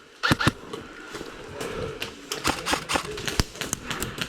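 Airsoft gunfire: two quick shots in a row just after the start, then irregular sharp clicks and snaps through the second half.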